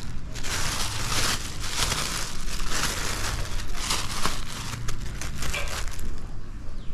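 Thin plastic bag crinkling and rustling as hands pull it open around a mango branch, in a run of rustles that eases off after about four seconds.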